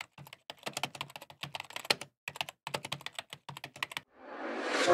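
Computer keyboard typing: a quick, irregular run of key clicks. Near the end the clicks stop and a rising whoosh swells up.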